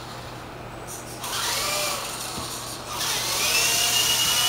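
Remote-control helicopter's small electric rotor motor whining, rising in pitch about a second in and easing off, then spooling up again and holding a steady high whine near the end.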